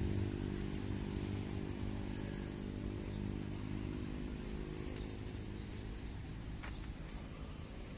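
A motor engine running with a steady low hum that slowly fades, with a few faint clicks about five and seven seconds in.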